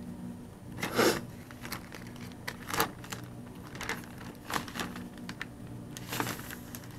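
Paper and plastic shipping packaging rustling and crinkling as it is handled, with a few sharper crackles scattered through.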